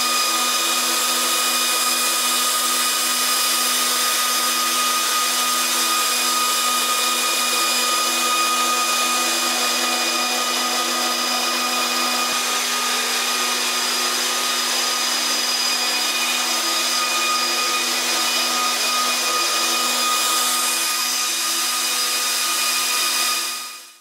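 Bitmain S19 ASIC bitcoin miner fitted with an Alpha Miner power supply, running with its cooling fans at speed: a steady, loud rush of air with a high fan whine. It fades out near the end.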